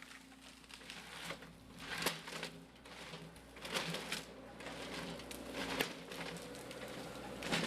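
Forestry machine running with a low, steady hum, with scattered sharp cracks and crackles of logs and branches being handled.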